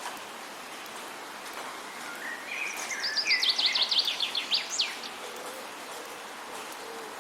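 A songbird sings one phrase: a few lower notes about a second and a half in, then a fast run of high, sweeping notes ending in one higher note near five seconds. Underneath is a steady background hiss.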